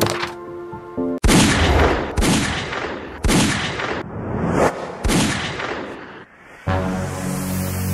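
Animated logo intro sting: a series of loud, sudden impact hits, about four big ones, each trailing off in a fading rush. About six and a half seconds in, a held synth chord comes in.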